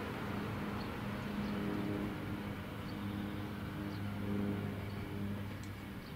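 A steady low mechanical hum, several steady tones over a faint even rumble.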